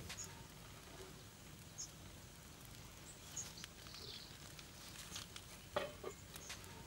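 Wood fire crackling under a boiling pot, with a few short high bird chirps. About six seconds in, a metal ladle knocks against the pot.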